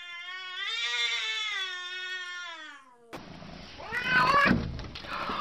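A domestic cat's long, drawn-out caterwaul, wavering in pitch and sinking at the end: the threat yowl of a cat squaring off with a rival through the glass. About three seconds in, the sound cuts to a louder, rougher passage of short cries and a heavy thump.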